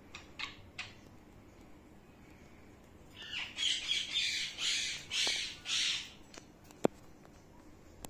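Pet parrots calling: a few short chirps, then a run of five or six harsh, raspy squawks over about three seconds. A single sharp click follows near the end.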